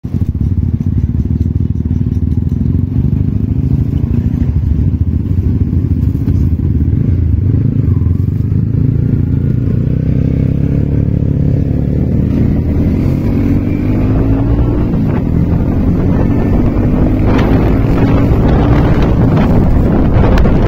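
155cc motorcycle engine running steadily at low revs, then pulling away with its pitch climbing through the gears, with a brief drop at a shift. Wind noise on the microphone builds near the end as the bike picks up speed.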